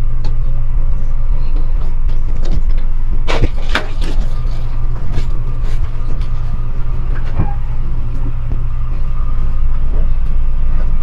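Sheet-metal fluorescent light fixture knocking and rattling as it is handled and lowered from the ceiling, with a few sharp clanks about three to four seconds in and another about seven seconds in. A steady low rumble runs underneath.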